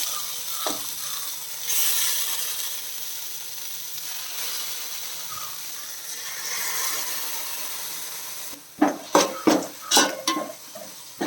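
Onion-tomato masala with freshly added ground paste sizzling in hot oil in a pan, the hiss swelling and easing. Over the last two or three seconds a spoon stirs it in quick strokes, knocking and scraping against the pan.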